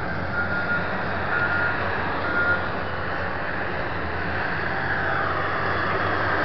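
Large Komatsu wheel loader's diesel engine running with its reversing alarm beeping about once a second in the first half. Later the engine note rises and grows louder as it revs up.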